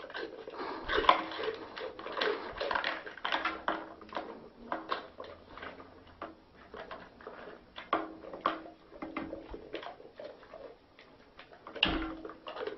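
A dog eating noisily from a small tub: a quick, irregular run of wet chewing and smacking clicks.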